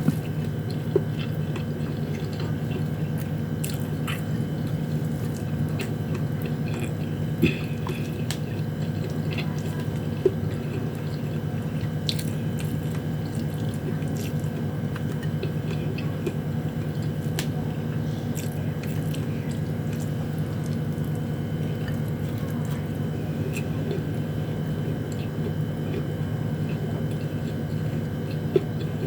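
Close-up chewing and mouth sounds of someone eating sardines and rice, with many small scattered clicks and four sharp taps, over a steady background hum.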